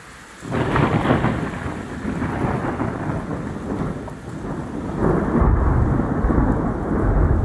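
Thunder breaks about half a second in and rumbles on, then swells again with a deeper rumble about five seconds in, with rain falling.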